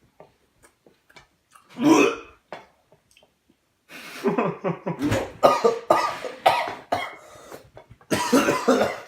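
A person coughing and clearing the throat while eating: one cough about two seconds in, then a run of repeated harsh coughs over the last five seconds.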